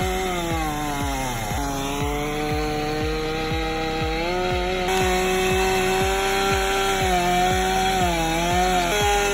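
Chainsaw running at high revs, its pitch dropping and recovering as it bogs in the cut about a second and a half in and again near the end. A regular low pulsing runs underneath, about two and a half a second.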